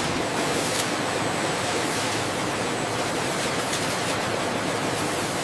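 Steady, even rushing noise of factory machinery, with a couple of faint clicks about a second in and again near the end.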